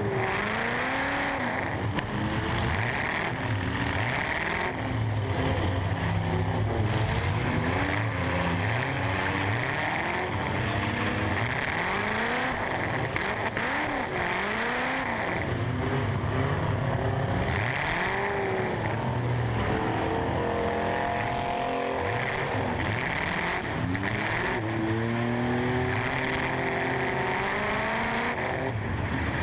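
Stock eight-cylinder engine of a large demolition-derby truck, heard from inside the cab, revving up and falling back again and again as it accelerates and backs off.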